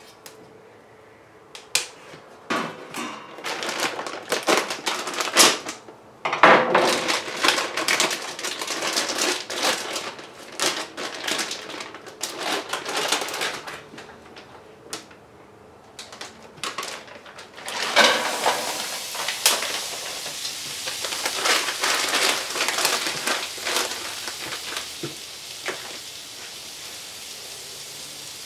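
Bursts of rapid clicking, rustling and scraping from handling at a skillet of vegetables. In the last seconds this gives way to a steady sizzle as the vegetables fry in the pan over a wood-fired stick stove.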